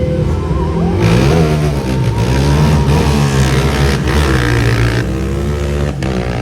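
Sport quad ATV engines accelerating hard in a drag race, several engines at once, their pitch climbing and dropping repeatedly as they rev. The sound grows louder about a second in.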